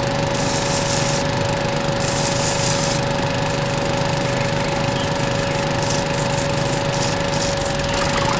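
Small DC motor of a miniature borewell drilling rig running steadily with a constant whine. Two short stretches of hiss come in the first three seconds, followed by a rapid series of short ticks.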